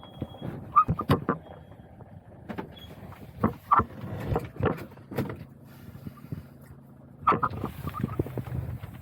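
A vehicle moving, with a low engine hum under irregular knocks, clicks and creaks.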